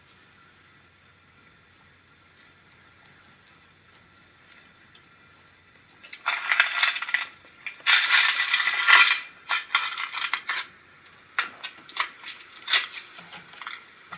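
Slime being squeezed and pressed by hand, giving crackly, crunching bursts. They start about six seconds in: two longer bursts, then a run of shorter ones.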